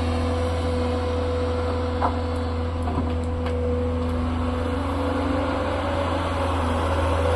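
Tata excavator's diesel engine running steadily with a low drone and a steady whine, which fades near the end. A couple of faint knocks about two and three and a half seconds in.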